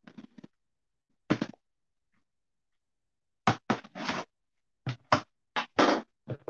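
Cardboard shipping box being opened: packing tape tearing off and the flaps pulled back, in a string of short tearing and scraping noises. The first loud one comes just over a second in, and they come close together through the second half.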